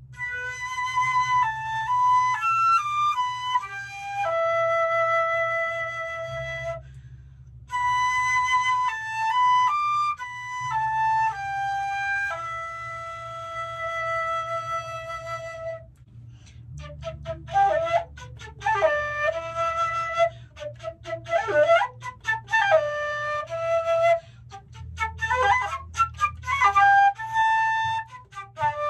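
Solo concert flute playing an unaccompanied melody: slow phrases of long held notes with a pause for breath, then a quicker, livelier passage of short notes from about halfway.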